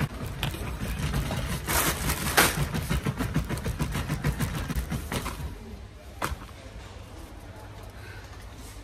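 Plastic shopping cart rolling along a supermarket floor, its wheels rumbling and its frame rattling, with a few sharp knocks. The rattling dies down about halfway through, leaving a quieter rumble.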